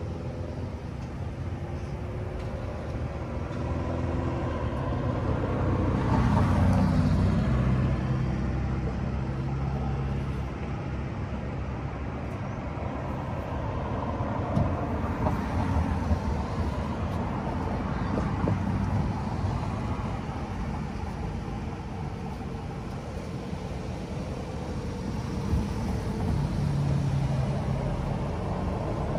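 Street traffic: cars driving past, engine hum and tyre noise rising and fading, with louder passes about six seconds in and again near the end.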